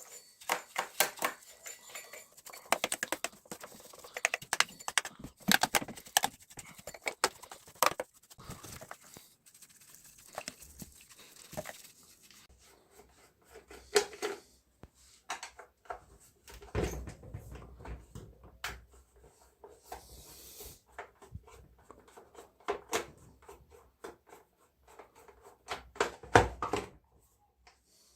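Irregular clicks, knocks and scraping of hand work on a chainsaw's metal and plastic parts, with a few heavier knocks near the middle and near the end.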